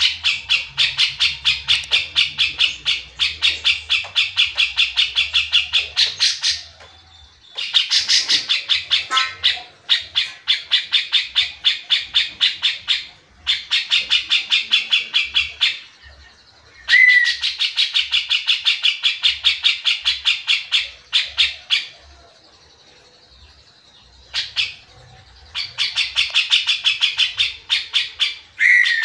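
Grey-cheeked bulbul (cucak jenggot) singing long runs of rapid, evenly repeated notes, about five a second, broken by a few short pauses.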